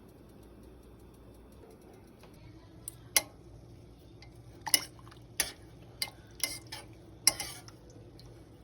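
A spoon clinking and tapping against a pot of soup, about eight sharp separate knocks spread over a few seconds, over a faint low hum.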